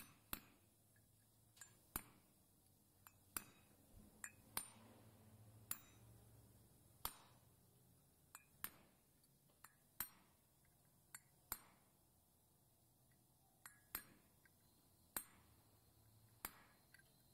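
A hammer tapping a steel punch against the wheel hub of an Isuzu D-Max front brake rotor to drive the hub and rotor apart. The taps are sharp metallic clinks with a short ring, coming irregularly about once a second.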